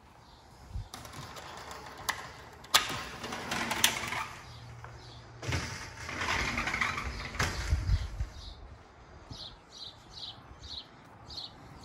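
Clicks, rattling and rustling as a sliding glass door is gone through onto a patio, then a small bird chirping in short high notes, two or three a second, over the last few seconds.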